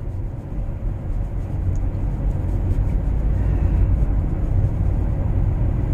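Steady low rumble of a van driving along, engine and tyre noise heard from inside the cabin.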